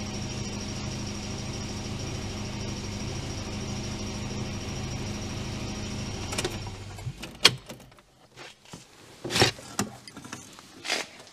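Volvo 245 engine idling steadily, running almost smoothly but not perfectly. It stops abruptly about seven seconds in, followed by a few sharp clicks and knocks.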